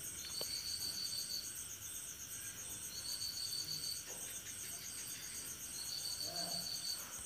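Insects chirping: a steady high-pitched pulsing, with a slightly lower trill about a second long that comes four times.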